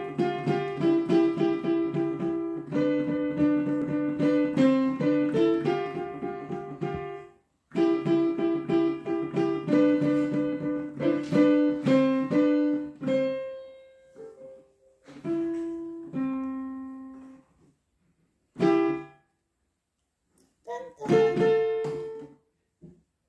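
Digital piano played with both hands: quick repeated chords for about the first thirteen seconds, then shorter phrases broken by pauses, stopping and starting again several times near the end.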